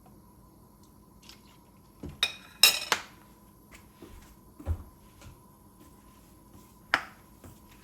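Metal spoon clinking and knocking against a pot and dishes, a few separate strikes: a ringing cluster about two and a half seconds in is the loudest, with a duller knock around the middle and one more sharp clink near the end.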